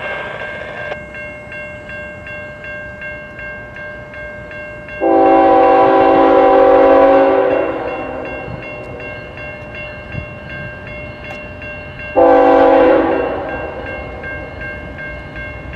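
Diesel freight locomotive horn sounding a chord twice, a long blast of about two and a half seconds followed about five seconds later by a short one, over a level-crossing bell ringing at about three strokes a second.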